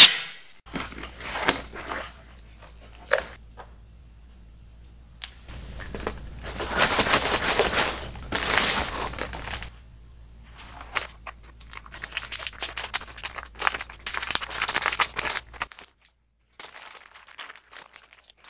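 Packing tape being torn off a cardboard box and plastic packaging crinkling as the parcel is opened, in several irregular bursts of tearing and rustling with short pauses between.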